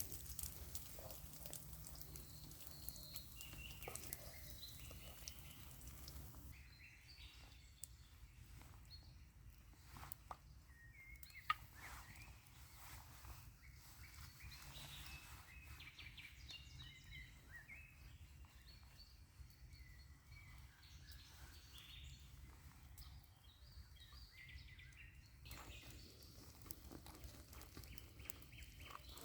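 Quiet forest ambience: scattered faint bird chirps over a low steady rumble, with a few sharp clicks, the loudest about a third of the way through.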